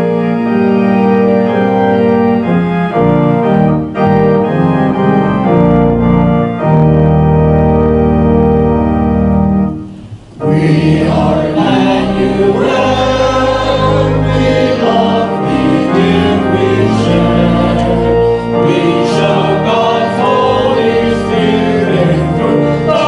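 Organ playing a hymn introduction in steady held chords; about ten seconds in, after a short break, a group of singers comes in and sings the song with the organ.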